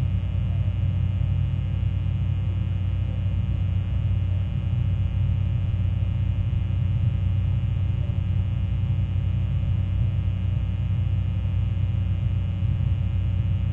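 A fog horn sounding as a low, steady pitched drone with many overtones, unbroken and unchanging in level.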